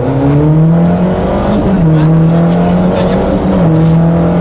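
Renault Clio Williams rally car's 2.0-litre four-cylinder engine under hard acceleration, heard from inside the cabin. It revs up and drops sharply in pitch twice, about one and a half seconds in and again near the end, as it is shifted up through the gears.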